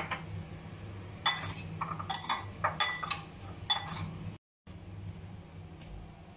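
Metal spoon clinking against a ceramic bowl as seasoned prawns are stirred, a quick run of ringing clinks in the middle, over a faint steady low hum.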